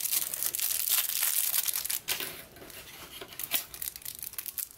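Thin clear plastic wrapper crinkling and tearing as a small plastic toy is unwrapped by hand. The crackling is densest for the first two seconds, then comes in scattered short bursts.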